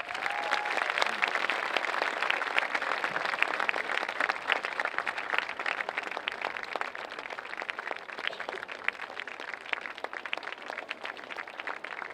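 A large audience clapping in a sustained round of applause, dense from the start and easing off slightly in the second half.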